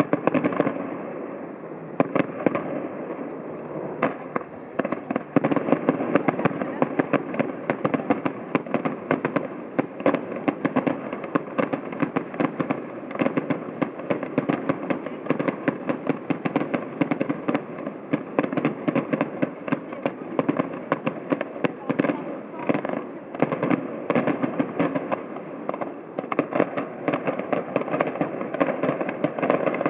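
Fireworks display: a dense, continuous crackle of many sharp reports each second, with a few louder bangs among them.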